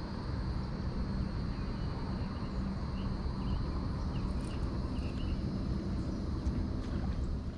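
Outdoor ambience on the water: a steady low rumble under a steady high drone, with a few short bird chirps about three to five seconds in.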